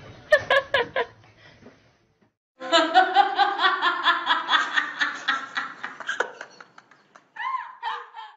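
A person laughing in rapid short bursts for several seconds, after a brief pause. Near the end comes one short rising-and-falling call.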